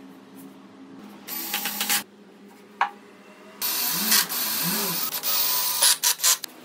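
Cordless drill boring pocket holes into pine 2x4s through a pocket-hole jig, in several bursts. The longest runs about two seconds in the second half, with the motor speed rising and falling, and is followed by a few short bursts.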